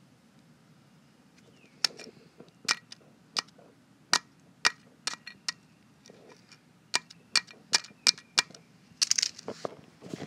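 A knife blade striking burnt fidget-spinner ball bearings: about fifteen sharp metallic tinks at an uneven pace, starting about two seconds in, with a quick run of hits near the end. The ringing tink marks the bearings as metal, not ceramic.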